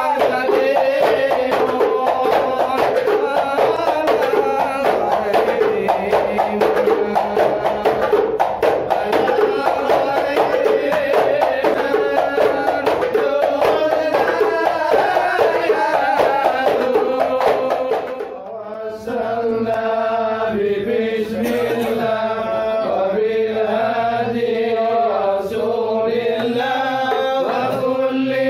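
Hadrah Ishari performance: a group of men chanting sholawat together over rapid, dense strokes of hand-struck frame drums (terbang/rebana). About 18 seconds in the drumming thins out after a short dip, and the chanting voices carry on with sparser drum strokes.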